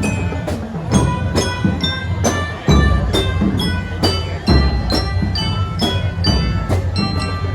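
Marching band playing a piece: quick high struck notes ring out over steady drumming, with strong accents roughly once a second.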